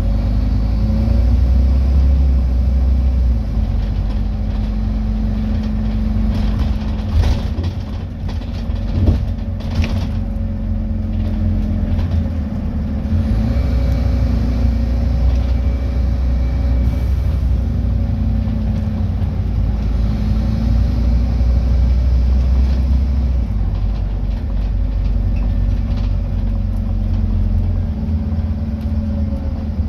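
Scania N230UD double-decker bus heard from inside the passenger cabin while under way: the five-cylinder diesel engine's steady drone with low road rumble, the engine note rising and easing as the bus drives. A few knocks and rattles from the body come around eight to ten seconds in.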